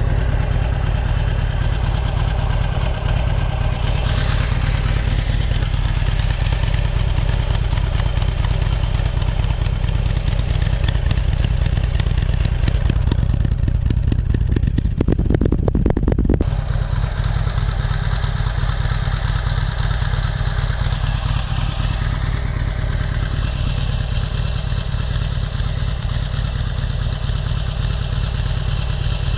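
Harley-Davidson Sportster Superlow 883's air-cooled 883cc Evolution V-twin idling steadily through its twin staggered shorty exhaust. For a few seconds near the middle the exhaust pulses come through more strongly, then it settles back.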